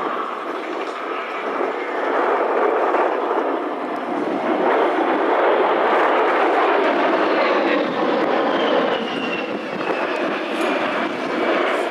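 Twin General Electric TF34 turbofans of an A-10 Thunderbolt II as the jet passes close overhead: a steady jet rush that swells in the middle, with a high fan whine falling in pitch over the second half.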